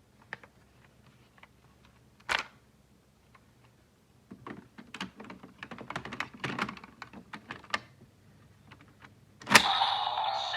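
Hard plastic clicks and rattles of a toy Raise Buckle transformation belt being handled and operated. There is a sharp click about two seconds in and a flurry of small clicks in the middle. Near the end a loud click sets off loud electronic sound and music.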